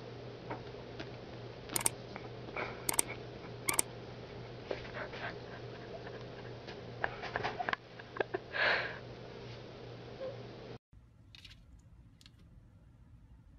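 Sleeping puppy snuffling and sniffing while it twitches, with a few sharp clicks and one breathy snort near the end, over a steady low hum. It then cuts to quiet room tone with a couple of faint clicks.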